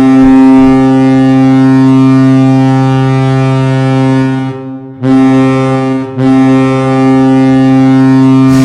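Ice hockey arena goal horn sounding loud and deep in three blasts: a long one of about four and a half seconds, a short one of about a second, then another long one that runs on.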